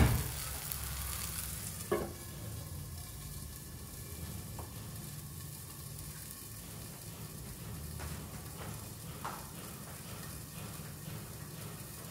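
Tomato gravy base sizzling gently in a kadhai on a low flame, a steady soft hiss. A sharp knock at the start and a lighter one about two seconds in.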